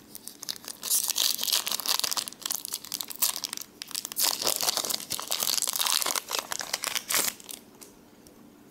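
Foil wrapper of a Pokémon trading-card booster pack crinkling and tearing as it is opened by hand; the crackling starts about a second in and stops about seven seconds in.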